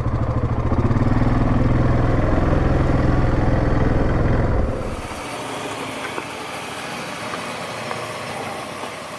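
Yamaha Grizzly 700 ATV's single-cylinder engine idling steadily, then cutting off sharply about five seconds in, leaving a quieter steady hiss.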